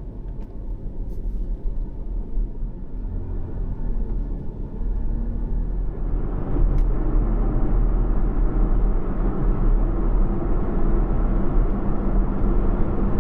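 A vehicle driving along the road, with a steady engine and road rumble that steps up louder about six seconds in.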